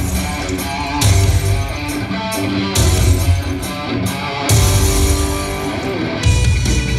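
Loud live rock: an amplified electric guitar playing a run of quick single notes over a heavy low end and a high wash that drop in and out in blocks every second or two.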